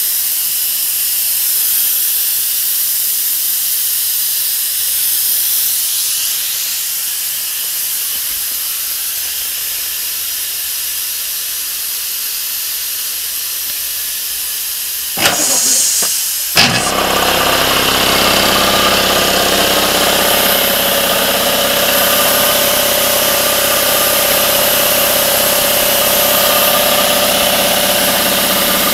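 Compressed air hissing steadily out of the open end of an air hose. From about halfway through, after a couple of short knocks, the air compressor's pump is heard running with a steady hum under the hiss as the compressor runs continuously to build heat and moisture in the aftercooler.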